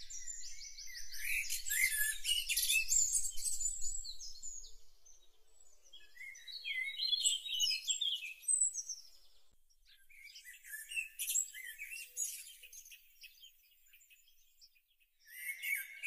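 Songbirds singing: quick overlapping chirps and trills, busiest in the first few seconds and again around the middle, thinning out to almost nothing shortly before the end.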